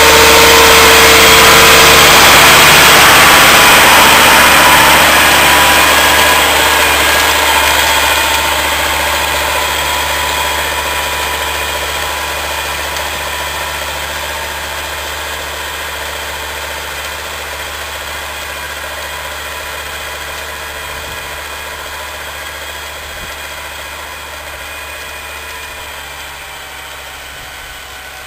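Same Laser 100 tractor's diesel engine working steadily under load while pulling a disc plough through soil. It is loudest in the first few seconds, then fades gradually as the tractor draws away.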